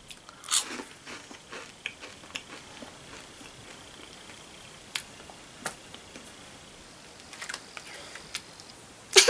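A person quietly chewing a piece of dried fruit, with a few soft, scattered mouth clicks and smacks. There is a brief louder sound near the end.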